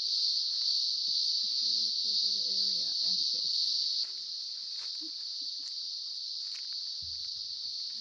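Steady high-pitched insect chorus droning without a break, dropping in level about halfway through.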